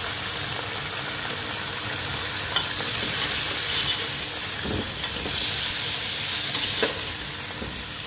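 Raw mutton pieces sizzling as they fry in hot ghee with golden onions in a pressure cooker: a steady hiss that swells a little in the middle. Three light clicks of a metal slotted spatula against the pot come at about two-second intervals.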